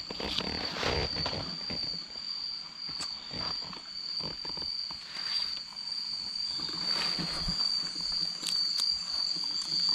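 Night insect chorus, crickets or katydids, holding one steady high-pitched note, with scattered short rustles and knocks over it.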